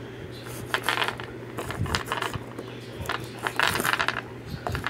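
A small plastic cup scraping and clicking on floor tiles as a hand slides it about. The sound comes in short rasping bursts: about a second in, near two seconds, and a longer one between three and a half and four seconds.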